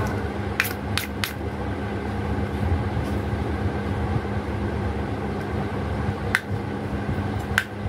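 Toy plastic knife and plastic cutting board clicking as they are handled: a few sharp clicks, three close together near the start and two more near the end. Underneath is a steady low background hum.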